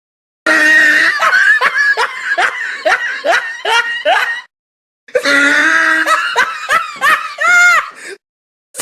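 Two separate meme laughing sound effects, one after the other with a short silent gap between. The first is a run of rhythmic 'ha' bursts, about two or three a second. The second is a laugh ending in a wavering high-pitched note.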